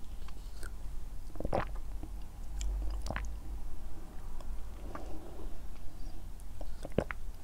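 Close-miked mouth sounds of sipping a sakura milk pudding Frappuccino through a straw: wet sucking and chewing of the soft drink and pudding, with three sharp mouth clicks spread through it.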